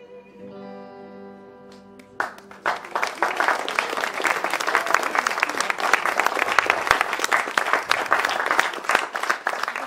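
Guitars let the final chord of a blues song ring out, then about two seconds in an audience breaks into applause, which is the loudest sound here.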